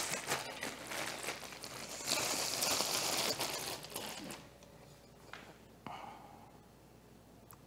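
Clear plastic bag crinkling and rustling as a statue piece is pulled out of it, loudest around the middle and stopping about four seconds in; a few faint handling ticks follow.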